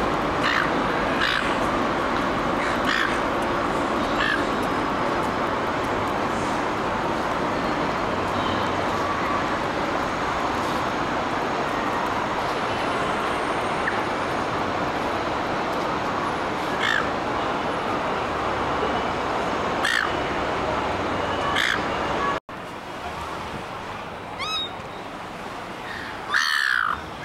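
Silver gulls giving short, harsh calls every few seconds over a steady wash of city traffic noise. Near the end the traffic noise stops abruptly and a few louder, closer gull calls follow.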